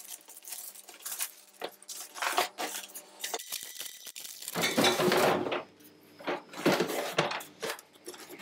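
A hard plastic tool carry case being slid out of its cardboard box: cardboard scraping, plastic wrap crinkling and the case knocking as it is set down on a wooden table. The sounds come in irregular bursts, with the longest scraping stretch about five seconds in and sharper knocks soon after.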